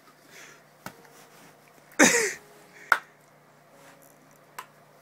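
Sharp slaps on a stethoscope's chest piece: one about a second in, a louder one near three seconds and a fainter one near the end. A short yelp with a falling pitch about two seconds in.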